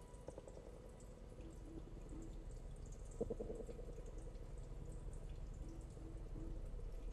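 Faint ambient sound design: a steady low rumble with scattered soft ticks and short low tones, and a brief ringing swell about three seconds in.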